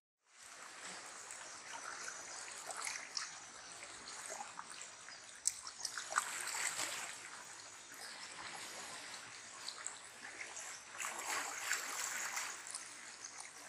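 Small waves lapping and trickling among rocks at the water's edge, with scattered small splashes.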